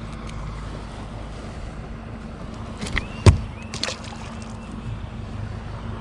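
Boat motor running steadily with wind on the microphone. About halfway through comes one sharp knock, with a few lighter clicks around it.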